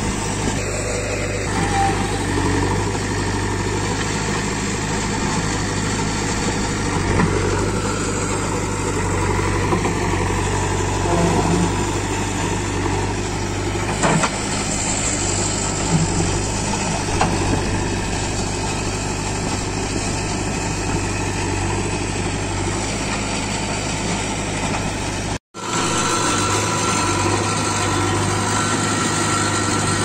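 JCB 3DX backhoe loader's diesel engine running steadily under load as its front bucket pushes and levels soil, with a few short knocks partway through. The sound cuts out for a moment about three quarters of the way in, then the engine picks up again with a steadier tone.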